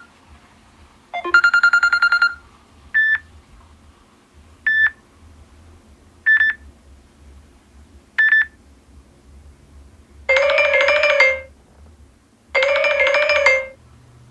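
Samsung Galaxy Note 8 stock ringtones. A short chime phrase plays, then four short single beeps about 1.7 seconds apart, then two longer, buzzy electronic tones of just over a second each.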